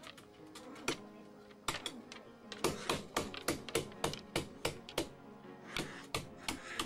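Striped skunk stamping its front feet on a wooden floor, a run of sharp taps, about three or four a second at the busiest, as a threat display of an angry skunk. Background music plays underneath.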